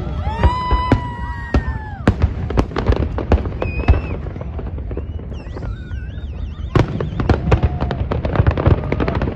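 Fireworks display: a dense run of sharp bangs and crackling pops over a steady low rumble. Whistling fireworks shriek through the first two seconds, and wavering whistles return for a moment a little past the middle.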